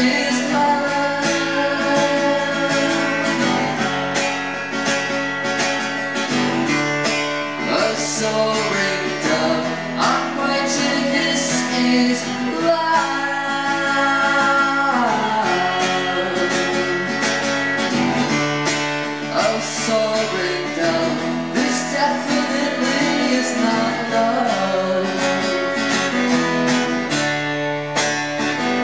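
Acoustic guitar strummed steadily in a live song performance.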